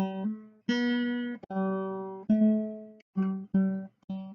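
Background music: an acoustic guitar playing single plucked notes one after another, each ringing and fading, with short silent gaps between them.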